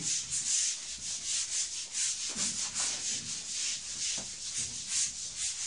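Handheld whiteboard eraser scrubbing across a whiteboard in quick, repeated back-and-forth strokes, a rhythmic rubbing hiss.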